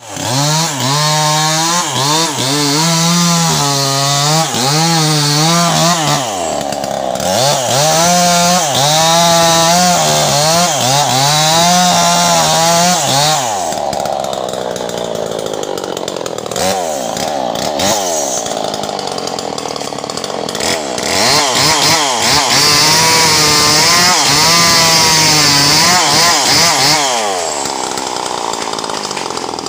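Stihl 070 two-stroke chainsaw cutting brush and saplings at high revs, its pitch wavering rapidly under load. About halfway through the throttle is eased and blipped, so the revs sag and rise in short sweeps. It then goes back to high-rev cutting, and the engine drops toward idle near the end.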